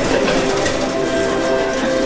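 Casino floor ambience: slot machines playing overlapping electronic jingles, held tones stepping in pitch, over a steady background hiss.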